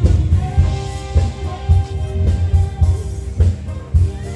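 Music with a steady drum beat, a kick drum a little under two beats a second under held instrument notes.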